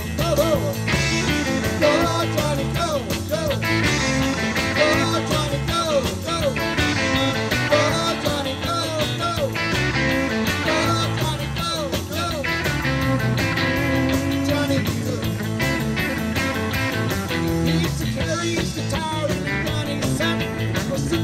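Live rock band playing electric guitars, bass and drum kit, with a harmonica cupped against a handheld microphone carrying a bending lead line over the band.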